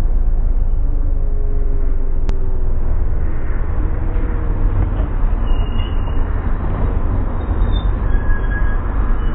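Supercharged Lotus sports car sliding off the road, heard as a loud, steady low rumble with a faint falling engine note about two seconds in. A single sharp click sounds just after two seconds.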